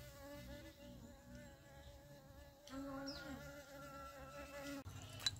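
A flying insect buzzing close by, with a steady, slightly wavering pitch that bends now and then; it cuts off suddenly near the end.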